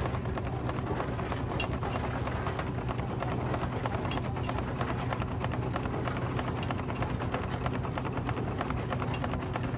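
Threshing machine and baler working, belt-driven by a Field Marshall single-cylinder two-stroke diesel tractor: a steady fast mechanical clatter over a constant low hum.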